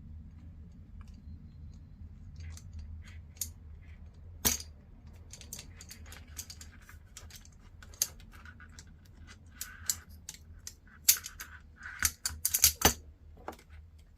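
Scattered light metallic clicks and taps of small tools and parts being handled while soldering a wire into a connector, with a cluster of louder clicks near the end. A low steady hum runs underneath.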